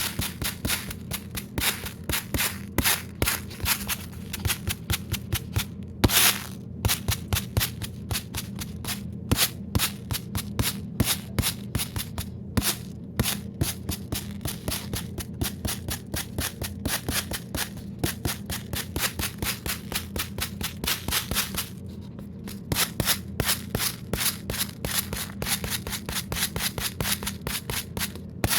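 A rapid, irregular run of sharp clicks and crackles, several a second, over a steady low hum, with one louder crack about six seconds in and a brief lull near the end.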